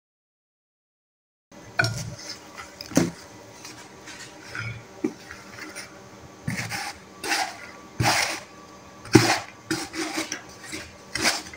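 Metal spoon scraping rice out of a styrofoam takeaway box and clinking against glass plates, in irregular clicks and scrapes. It starts after about a second and a half of silence.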